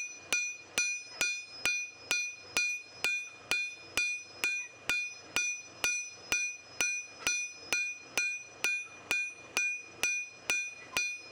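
Hand hammer striking hot knife steel on an anvil in a steady rhythm, about two blows a second, each blow ringing. The blade edge is being forged out to bevel it and widen it.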